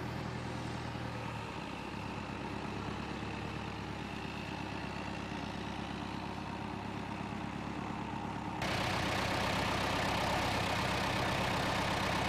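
Farm tractor engine running steadily while it drags a roped boat trailer out of soft beach sand. About two-thirds of the way through, the sound cuts abruptly to a louder, closer take of the engine idling.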